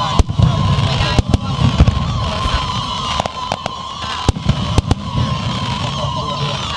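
Aerial fireworks display: about a dozen sharp bangs and cracks at uneven intervals over a low rumble, with a steady high tone running underneath.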